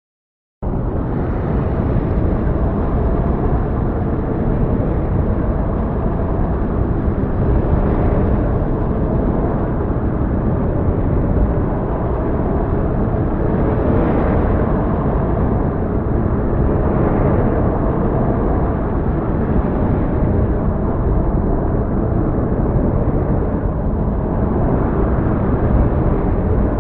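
Storm sound effect: a loud, continuous low rumble of thunder and storm noise that cuts in suddenly about half a second in, with a few brief swells along the way.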